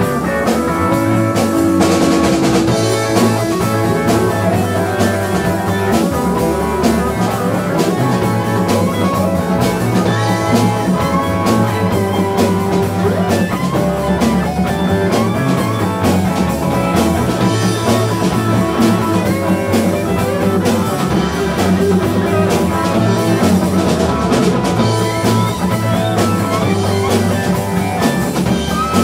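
Live rock band playing an instrumental passage: electric guitar with bent notes over a bass line, drum kit and congas.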